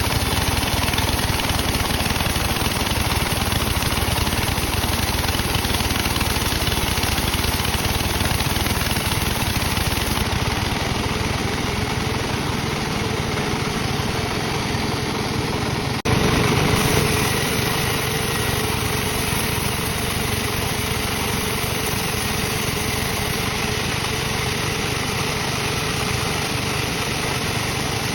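Sawmill machinery running steadily with an engine-like drone, at teak-log sawing. About halfway through the sound breaks off for an instant and comes back a little louder.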